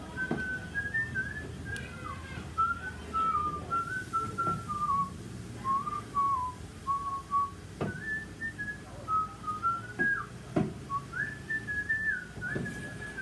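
A man whistling a tune, one clear line of held notes stepping up and down, with a few short knocks in between.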